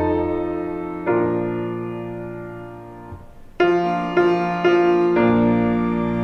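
Slow solo piano music: sustained chords, one left to fade for a couple of seconds before new chords come in about three and a half seconds in.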